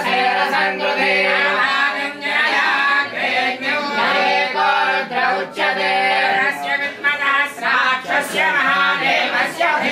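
A group of voices singing a devotional chant together, continuous and sustained.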